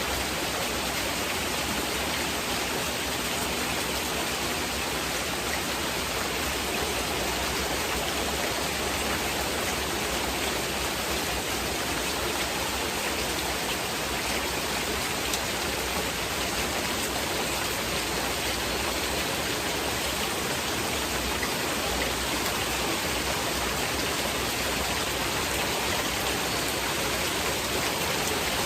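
Heavy rain falling steadily, a continuous even hiss blended with masking noise, with no single drops or other events standing out.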